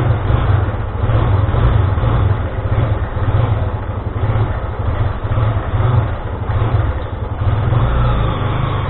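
An engine running steadily with a low, throbbing pulse.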